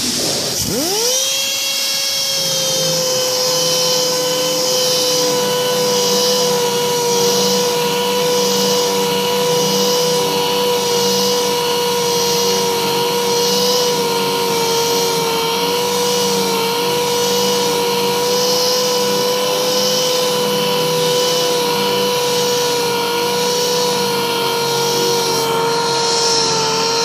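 Dynabrade pneumatic horizontal grinder with a 6-inch Type 1 aluminum oxide resin-bond straight grinding wheel. It spins up with a rising whine about a second in, then runs at a steady high whine while the wheel grinds a metal surface.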